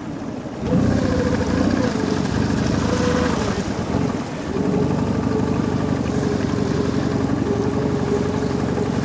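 Cold outboard motor on an inflatable boat, picking up speed about a second in, sagging briefly near the middle, then running steadily. The engine is not yet warmed up and is thought to be running rich.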